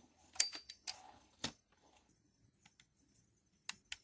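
1951 Smith Corona Skyriter portable typewriter: a sharp clack about half a second in with a short, faint high ring from its muted margin bell, then another clack and a few light clicks of the mechanism.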